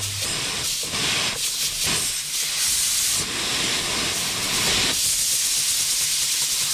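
Compressed air hissing steadily from an air blow gun held to the inlet pipe of a small model steam engine, with irregular short pulses through the first five seconds. The hiss changes in tone about five seconds in.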